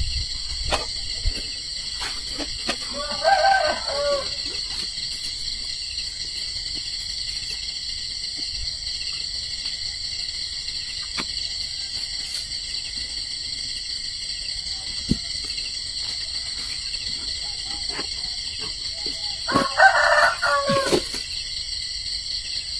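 A rooster crows twice, about three seconds in and again near the end, over a steady high-pitched chorus of night insects.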